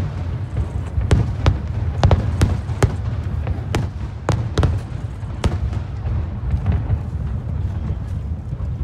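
Aerial fireworks bursting: a quick, irregular run of sharp bangs and crackles over a continuous low rumble. The bangs come thickly for the first five or so seconds, then thin out while the rumble goes on.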